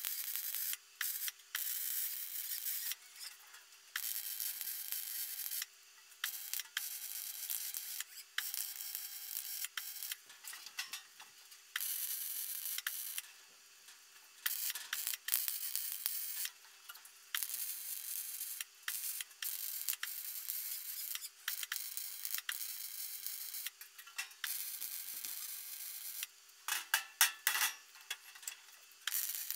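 Electric arc welding on mild steel sheet: the arc runs in stretches of one to three seconds with short pauses between, as the new sheet is stitched onto the topper frame. A faint steady hum lies underneath, and a quick run of sharp knocks comes near the end.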